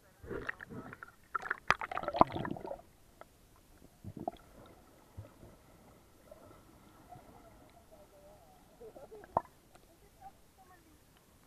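Seawater splashing and gurgling around a waterproof camera as it dips under the surface, loudest in the first three seconds. Then muffled underwater sound with a faint steady whine in the middle and a sharp click or two.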